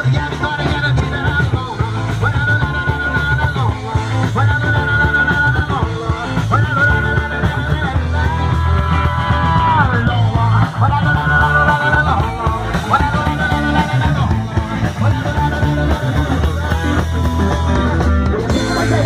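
Live gospel band playing electric guitars, bass and drums, with a heavy steady bass line under a melody in held phrases that repeat every second or two.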